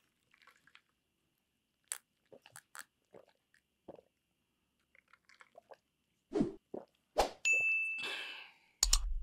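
Faint gulps and small clicks of someone drinking iced soda from a glass mug, then two knocks and a bright ding that rings for about a second, followed by a sharp click near the end.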